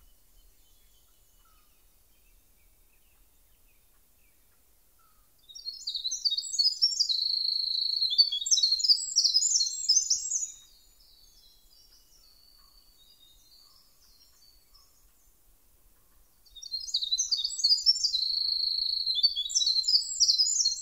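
A small songbird sings a long, rapid, high-pitched song of tumbling notes and trills, twice. Each song lasts about five seconds, with a pause of about six seconds between them.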